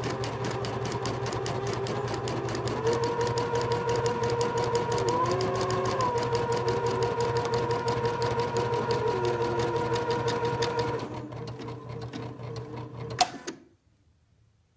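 Computerised home embroidery machine stitching at speed: the needle makes a fast, even clatter over a steady motor whine. It quietens at about 11 seconds, gives one sharp click just after 13 seconds, and then stops.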